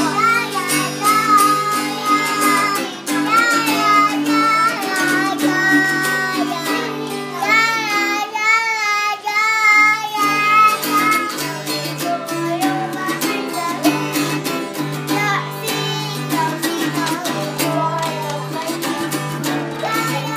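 A young girl singing a song, accompanied by a digital piano and a strummed acoustic guitar. About eight seconds in she holds one long note with a wavering vibrato.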